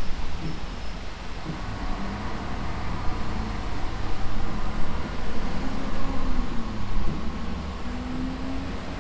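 Steady road traffic noise: a low, even rumble of passing cars.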